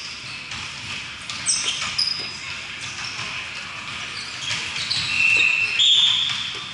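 A volleyball bouncing on the court floor as a player readies to serve, with several short, high-pitched squeaks of sneakers on the sport court, the loudest about five to six seconds in.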